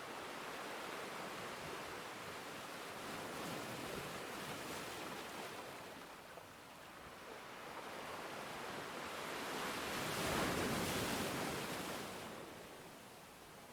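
Ocean waves washing onto a beach, a steady surf hiss that swells and fades, with one larger wave surging loudest about ten seconds in.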